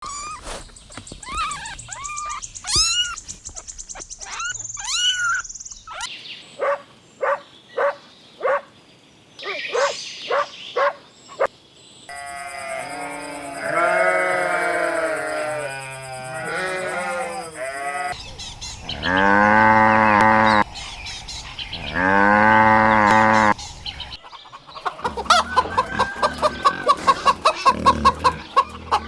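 A string of different farm animals calling. First come the high chirps and short clucks of chickens, then overlapping bleats from a flock. Two long, deep calls follow from bigger livestock, then a fast run of short grunting pulses near the end.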